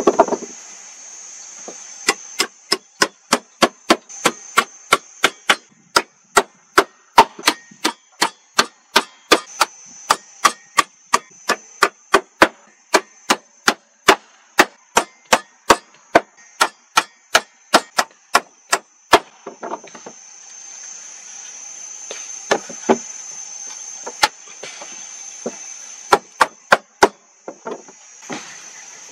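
Rapid, evenly paced blows of a hand tool on wood, about two to three a second, stopping a little past halfway, with a few scattered knocks later. Insects buzz steadily throughout.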